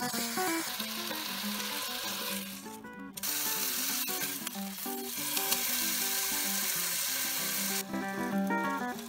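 Beef steak sizzling as it sears in a hot frying pan. The sizzle breaks off briefly about three seconds in, comes back louder, and drops away near the end.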